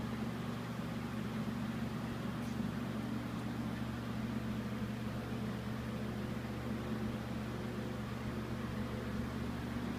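A steady, even mechanical hum, as of an electric motor or ventilation running, with no other sounds.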